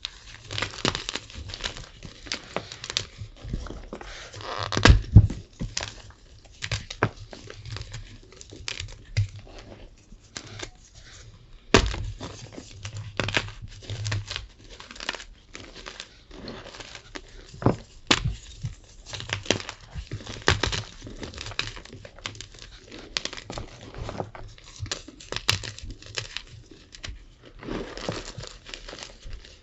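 Gym chalk being crushed and crumbled by hand: irregular dry crunching and crumbling, with a few sharper, louder crunches, the loudest about five seconds in and again near twelve seconds.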